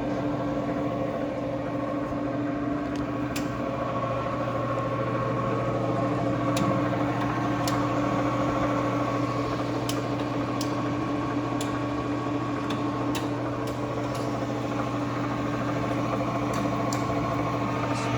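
Leblond Makino Servo Shift engine lathe running under power: a steady gear and motor hum with a few steady whining tones, and a scattered handful of light clicks.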